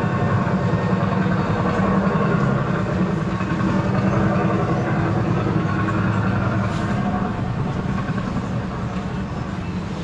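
Ride car's motor running steadily, a low rumble.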